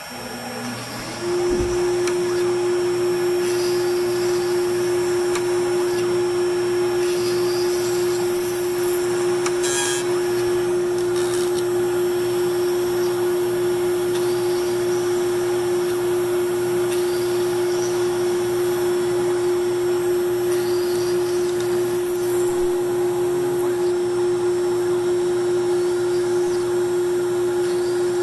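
GMT spindle of an AVID CNC router spinning up about a second in, then running with a steady whine at a slow 1500 RPM while a 1/16-inch twist drill bit drills into a 2x4.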